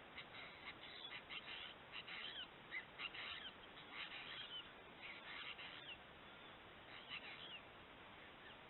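Wild birds calling at a drinking spot: short chirps and calls with a few gliding notes, coming in clusters about once a second, over a steady background hiss.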